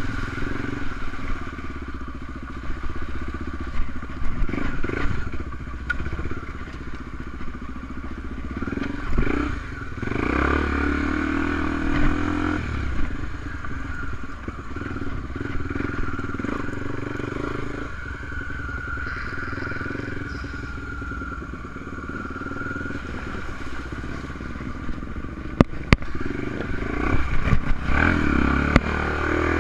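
Honda Tornado enduro motorcycle's single-cylinder engine running under way, revs rising and falling as it is ridden off-road, with a couple of sharp knocks near the end.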